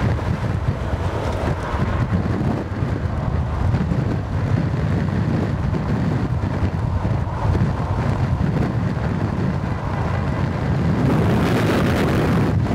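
Strong wind buffeting the microphone, a loud, steady low rumble, with a brighter hiss joining about eleven seconds in. The wind is the dust-laden gale blowing toward a nearby tornado.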